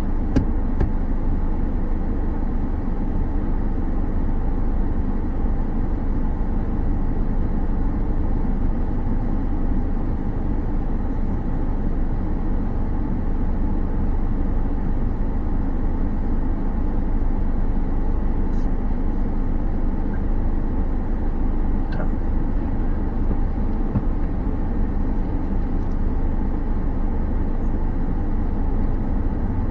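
Steady road and engine noise from inside a moving car's cabin.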